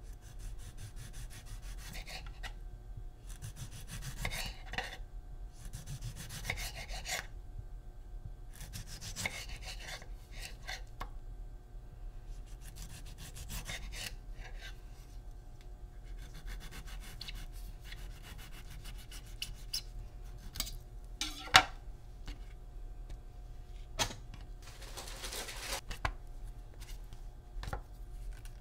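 A serrated knife sawing through a tomato on a wooden cutting board, in repeated short back-and-forth scraping strokes, with a few sharp knocks in between.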